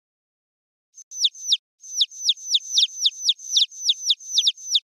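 A rapid series of bird-like chirps, each a quick high whistle sliding sharply downward, about three to four a second. It starts about a second in and cuts off abruptly.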